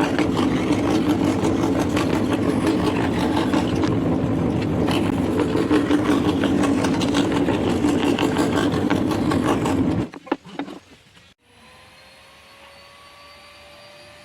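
Homemade scroll saw running steadily, then switched off about ten seconds in with a few clicks, leaving a faint hum.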